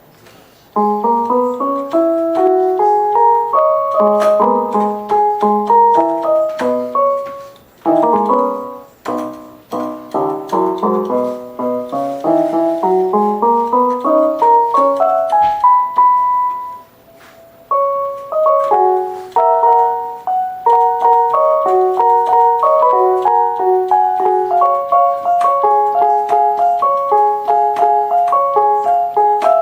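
Casio MT-520 electronic keyboard playing a tune of short, quick notes, including fast rising runs. It starts about a second in and pauses briefly twice.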